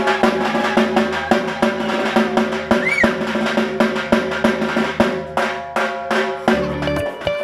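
Dhak, the large two-headed barrel drum of Durga Puja, beaten in a fast, dense roll of strokes.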